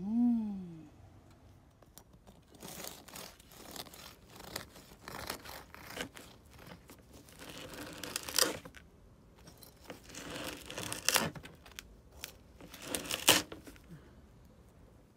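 A knife sawing through the hard, floury crust of a homemade loaf, the crust crackling and crunching in several rough strokes, loudest about two-thirds of the way in and near the end. A short falling tone sounds at the very start.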